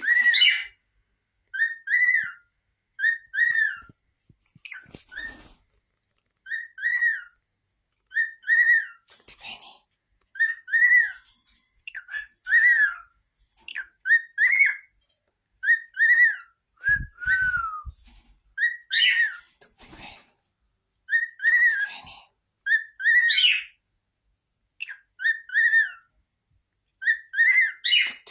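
Cockatiel whistling the same short, arched two-note phrase over and over, about every second or two.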